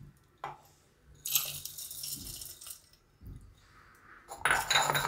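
Dry mixed fried namkeen (chavanu) poured from a bowl into a steel mixer-grinder jar: a dry rattling patter for about a second and a half. A knock follows, then another short rattle near the end.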